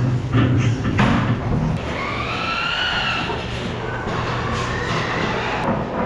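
Feeder pigs being driven along a slatted hog-barn alley with sort boards: rattles and knocks of the metal boards and pens over a steady low hum. About two seconds in, a pig squeals once, rising then falling in pitch for about a second.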